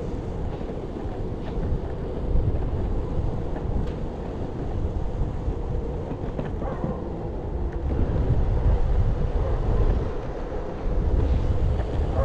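Wind buffeting the microphone in gusts, loudest about eight seconds in, over the steady rumble of a Possway T3 electric skateboard's 4-inch rubber wheels rolling on asphalt. The brushless hub motors give no belt noise or whining.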